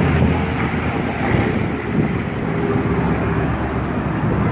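Piston engines of propeller-driven Second World War fighters, Merlin-engined types among them, running steadily as the aircraft fly past.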